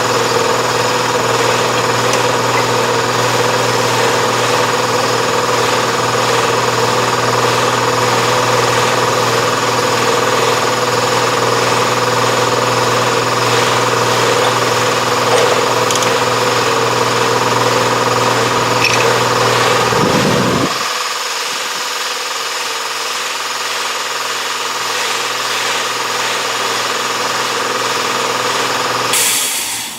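A motor-driven machine running steadily at constant speed. About two-thirds of the way through its deepest hum drops away, and near the end it cuts off suddenly after a brief hiss.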